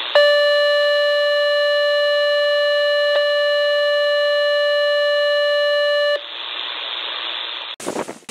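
A steady electronic beep tone with overtones, held for about six seconds and then cut off abruptly. A band of hiss follows, and wider outdoor noise comes in near the end.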